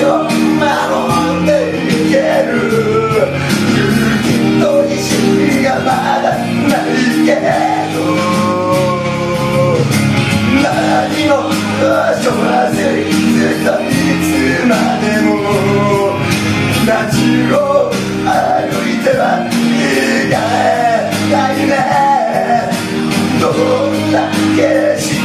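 A man singing into a handheld microphone over a karaoke backing track with a steady drum beat.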